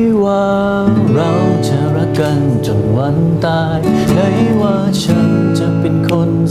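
Slow acoustic pop ballad played live: an acoustic guitar strummed and picked under a male voice singing a drawn-out, gliding melody.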